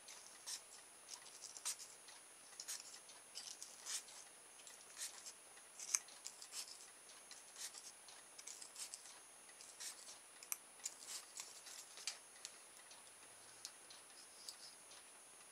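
Faint, irregular scratching strokes of sandpaper rubbed along the end of enamelled motor winding wire, cleaning the insulation off so the bare wire can make contact; the strokes thin out near the end.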